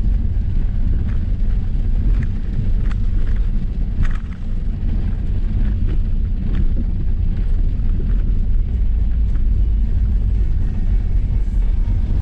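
Steady low rumble of a Range Rover Sport driving slowly over a wet, rough dirt track, heard from inside the cabin, with scattered light ticks.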